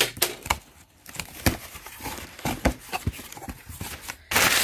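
Cardboard shipping carton being opened by hand: a run of sharp clicks and scrapes, then a loud ripping tear near the end.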